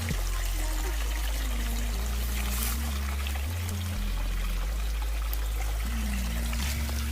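Water trickling and pouring steadily, over a background music track with a stepping bass line.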